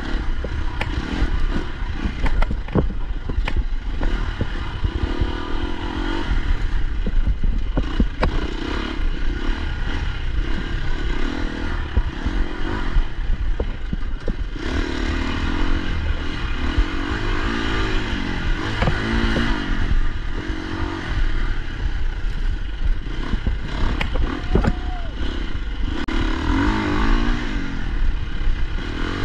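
Enduro dirt bike engine running hard and revving up and down again and again as it is ridden along a rough dirt trail. Sharp knocks from the bike going over bumps are scattered throughout.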